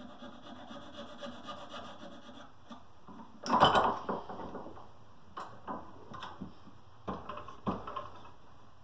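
Small hand file rasping steadily on a wooden handle held in a bench vise, stopping after about two and a half seconds. About three and a half seconds in comes a loud metallic clank from the vise's sliding handle bar as the vise is worked, followed by several lighter knocks and clicks as the wood is repositioned.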